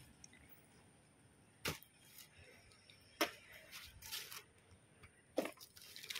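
Clothes and plastic bin bags being shifted by hand inside a wheelie bin: faint rustling with three sharp clicks or knocks, spaced out over a few seconds.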